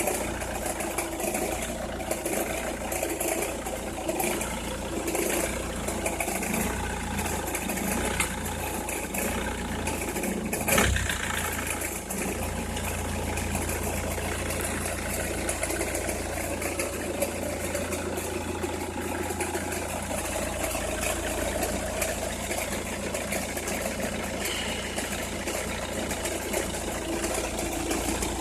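Opel Meriva engine idling cold, with the crackling noise that the owner hears only when the engine is cold or at very low revs. One sharper knock stands out about eleven seconds in.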